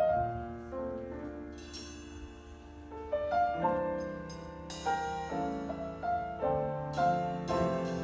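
Jazz trio of grand piano, vibraphone and drum kit playing together: a melody of sustained, ringing notes over piano chords, with light drums.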